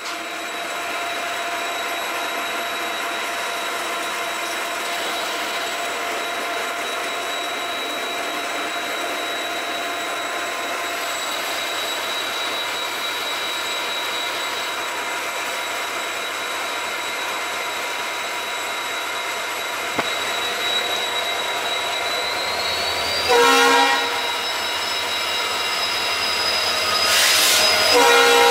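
Diesel locomotive running steadily at a standstill. Its roof-mounted air horn gives a short blast about three-quarters of the way through, then a longer, louder blast near the end, as the local passenger train prepares to depart.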